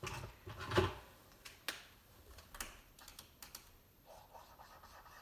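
Felt-tip marker tapping and drawing short strokes on chart paper: a scatter of light, irregular clicks, then a soft scratchy squeak of the tip moving over the paper near the end.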